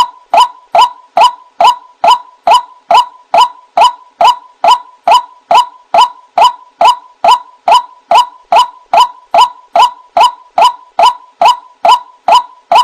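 White-breasted waterhen (ruak-ruak) calling: a single short note repeated evenly and monotonously, about two and a half times a second.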